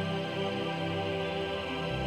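Background music with long held tones; a deeper low note comes in near the end.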